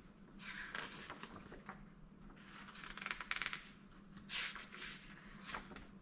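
Paper instruction sheets rustling and crinkling as they are handled and refolded, in several short spells, over a faint steady hum.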